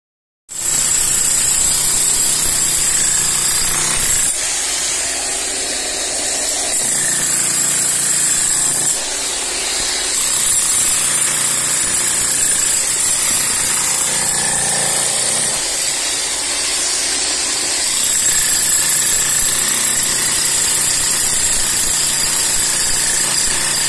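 Electric demolition hammer breaking up a concrete slab, hammering continuously with a few brief dips in level.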